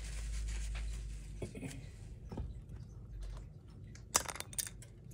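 Objects being handled on a craft desk: small scattered clicks and rustles, with a low rumble over the first few seconds and two sharper clicks about four seconds in.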